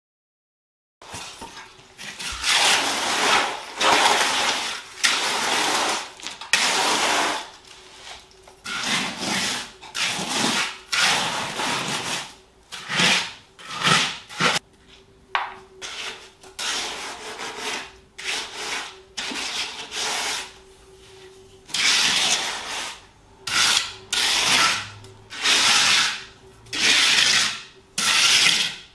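Hand trowel working render on a wall: repeated scraping strokes, about one a second.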